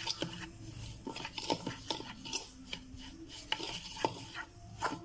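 A metal spoon stirring and scraping against a stainless steel bowl, mixing dry spice powders, with irregular clinks and scrapes several times a second.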